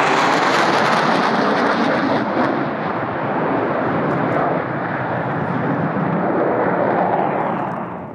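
F-15 fighter jet flying low overhead: a loud, steady jet roar. Its hissing top thins out after the first couple of seconds, and the roar dies away near the end.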